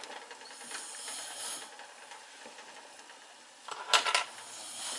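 A faint hiss, then a few quick clinks of a utensil against a stainless steel saucepan about four seconds in, as ground cloves are added to peach juice and cornstarch.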